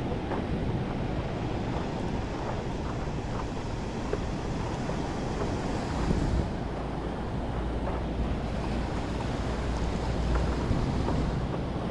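Wind rumbling steadily on the microphone over water, with small scattered splashes and drips from paddle strokes beside a stand-up paddleboard.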